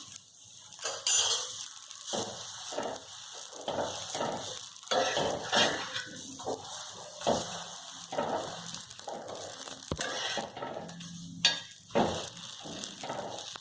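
Pav buns toasting in butter on a hot tawa: butter sizzling, with repeated irregular scrapes and clinks of a spatula against the griddle.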